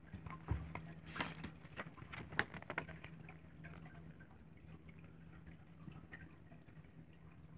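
Light rustling and tapping of a paperback book's pages as they are handled and turned: a cluster of soft clicks in the first three seconds, then only faint ticks.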